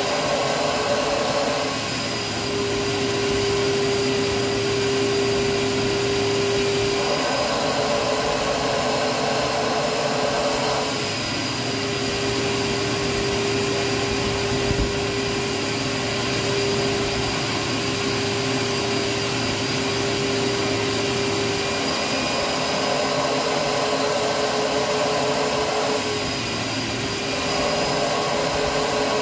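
Carpet-cleaning extraction machine's vacuum running steadily as its hose-fed wand is worked over a mattress. A steady hum gives way a few times to a coarser rush for a few seconds before settling again.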